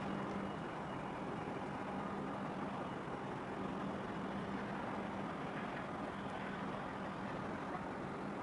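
Ships' diesel engines running in a harbour: a steady low drone with a hum that comes and goes, over a constant wash of noise.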